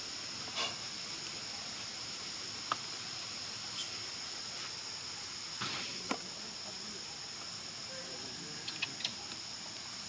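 Steady high-pitched drone of insects, with a few brief sharp clicks and chirps over it, the strongest a little before the middle and a quick cluster near the end.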